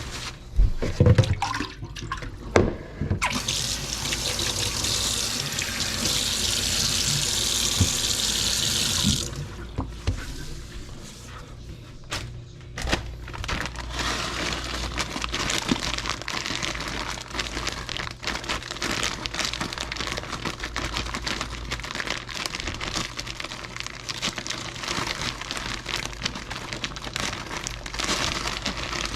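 Kitchen faucet running into a sink for about six seconds, turned on about three seconds in and shut off abruptly. A few knocks come before it, and a fainter, dense crackling patter follows.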